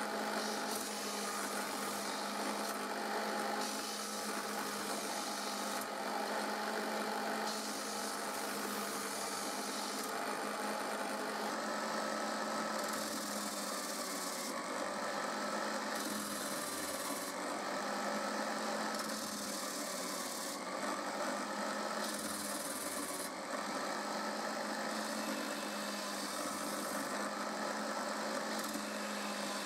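Electric drill mounted in a stand as a disc sander, its motor running steadily, with the rasp of a plywood piece being sanded on the disc rising and falling every second or two as the piece is pressed on and lifted off to round its corners.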